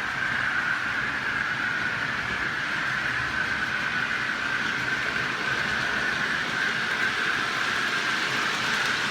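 OO gauge model train running on the layout: a steady whine from the small electric motor over an even rolling noise from the wheels on the track.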